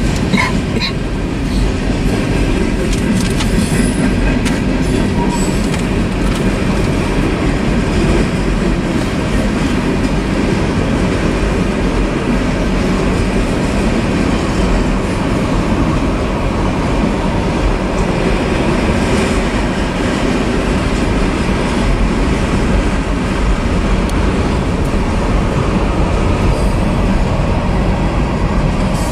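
Freight cars of a mixed manifest train (boxcars, tank cars, covered hoppers) rolling steadily past close by: a continuous rumble and rattle of steel wheels on the rails.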